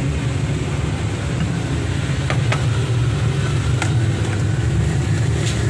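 Steady low rumble of background noise, with a few faint clicks about halfway through and again near the end.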